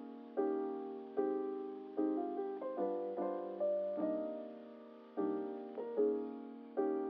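Background music: slow piano or electric-piano chords, a new chord struck about every second and left to fade.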